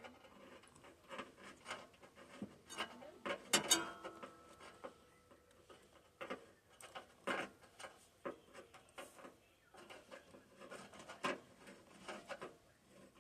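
Faint, irregular clicks, taps and rubbing from hand work with tools and metal parts on the riding mower, with a louder cluster of knocks about three and a half seconds in.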